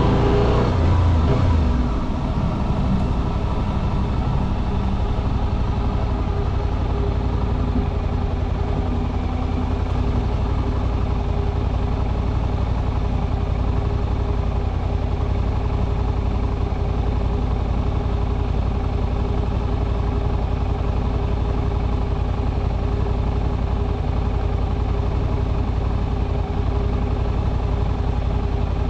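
Suzuki V-Strom 800RE's 776 cc parallel-twin engine heard from the cockpit. Its note falls over the first two seconds as the revs drop, then it settles into a steady idle.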